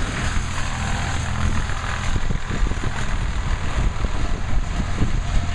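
Chainsaws running steadily in the background, a continuous engine drone, with low bumps and rumbles from the camera being carried and moved.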